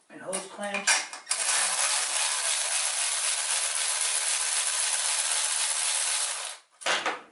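Cordless power tool running steadily for about five seconds as it turns out a fastener on the engine, then stopping suddenly.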